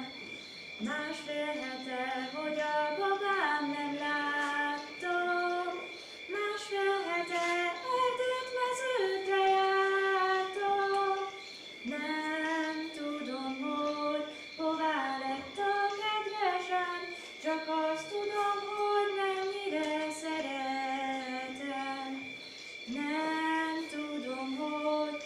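A woman singing a song alone without accompaniment, in sung phrases of a few seconds each with short breaths between. A faint steady high-pitched whine runs underneath.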